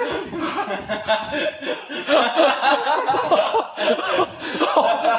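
People laughing hard and without a break, with voices overlapping.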